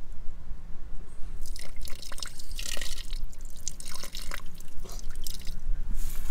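Water dripping and trickling from an outdoor tap onto a metal drain grate in irregular splashy bursts, over a steady low rumble.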